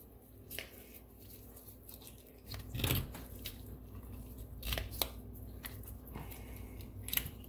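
Metal tin snips crunching through the fin bones of a bass skin, a few irregular snips with the loudest about three seconds in.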